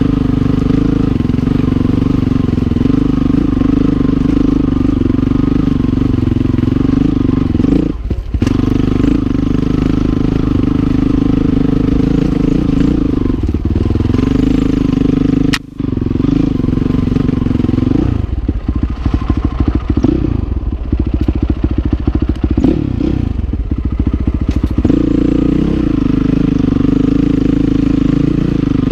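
Honda CRF450R's single-cylinder four-stroke engine running under the rider. It dips briefly twice, then falls for about seven seconds to a slow, uneven chug before picking up again.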